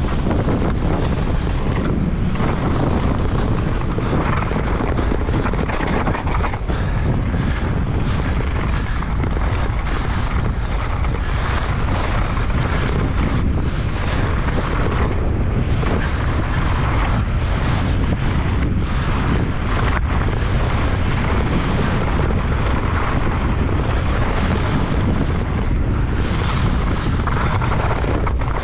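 Wind rushing over the microphone of a camera riding on a mountain bike descending a trail, with steady low rumble and frequent small knocks and rattles from the bike over rough ground.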